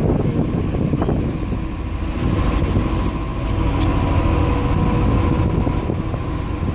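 Steady low vehicle rumble heard from inside a car cabin, with a faint steady hum and a few light clicks around the middle.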